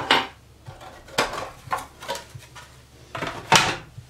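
Metal clinks and knocks from handling a belt grinder's guard cover and its small wing nut as the cover is taken off and set down on a wooden table. There are several separate knocks, and the loudest comes about three and a half seconds in.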